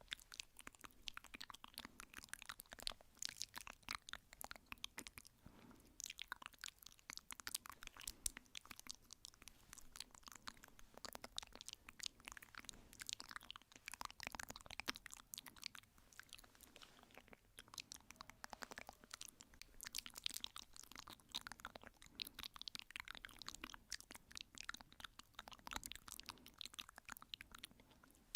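ASMR tapping sounds: a fast, irregular stream of soft, short clicks and taps with no pauses longer than a moment.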